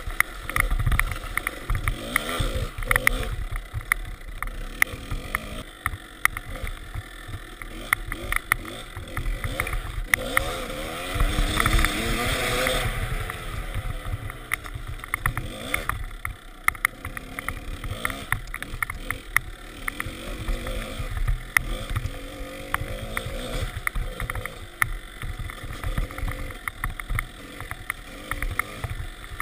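A 2003 Kawasaki KDX 200's two-stroke single-cylinder engine revving up and down as the dirt bike is ridden, with its loudest run of revs about halfway through. Wind buffets the microphone and short knocks come from the bike going over bumps.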